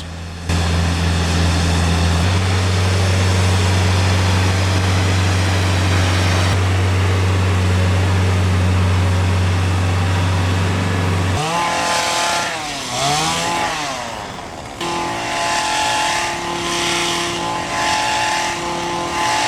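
Compact stump grinder's engine running steadily with a strong low hum; after about eleven seconds the pitch rises and falls several times, then it settles into a steadier, higher running sound.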